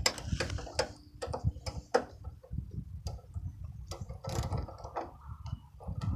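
Lawnmower spark plug being cleaned by hand with sandpaper: irregular clicks and short scratching strokes, several a second.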